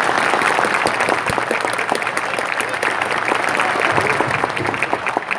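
Stadium crowd applauding: many hands clapping steadily.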